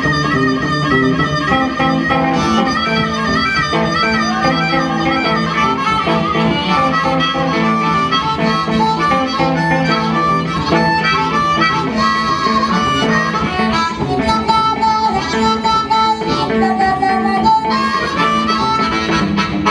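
Blues harmonica solo, the harmonica cupped in both hands close to a microphone, bending and wailing over rhythm from a semi-hollow electric guitar.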